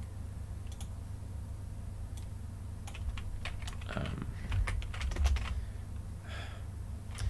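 Computer keyboard and mouse clicks, a few scattered keystrokes at a time, over a steady low hum.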